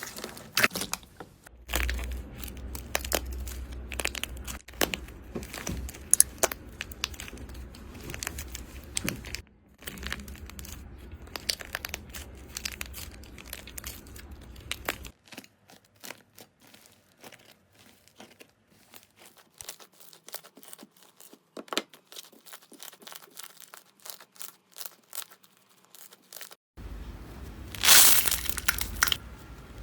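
Slime being squeezed, stretched and poked, giving dense small crackles, pops and sticky tearing sounds, in a string of short clips that cut abruptly. A quieter stretch of sparse clicks sits in the middle, and a loud burst of crunching comes near the end.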